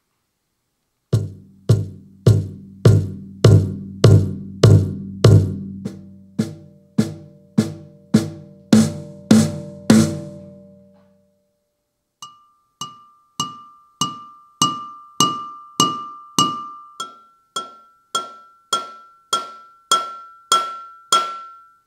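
Roland TAIKO-1 electronic taiko playing its SambaPerc sound bank, struck with sticks at a steady two beats a second. First about sixteen deep drum hits, then after a short pause about seventeen higher, ringing metallic-sounding hits whose pitch steps up partway through, as the other pad is played.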